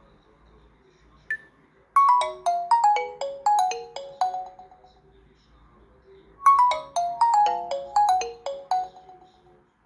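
Nokia G21 stock ringtone playing: a melody of short, quickly decaying notes that falls in pitch, played twice, after a single brief tone about a second in.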